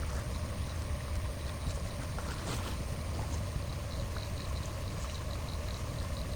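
Water flowing steadily, with a low rumble underneath. A faint, fast, high ticking runs through the second half.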